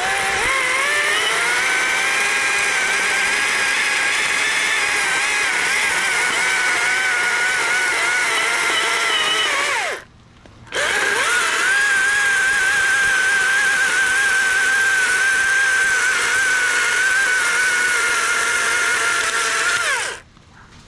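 Battery-powered chainsaw running in two long bursts of about ten seconds each, a steady motor whine whose pitch wavers a little. There is a short stop about ten seconds in, and it cuts off sharply at the end.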